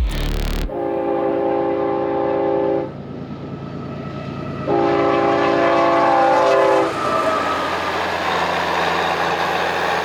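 A train horn sounds two long blasts, each a chord of several steady notes about two seconds long, over the steady rumble of a passing train. Rushing train noise continues after the second blast.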